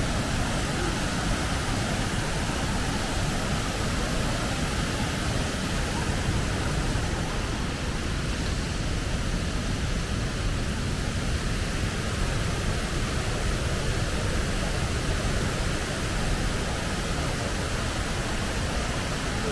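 Waterfall rushing steadily: an unbroken wash of falling water.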